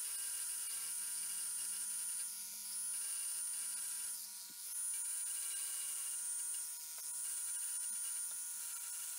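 Dremel rotary tool with a diamond point bit grinding into a cast resin (Alumilite) pen blank: a steady high whine with a few brief dips, played at four times speed.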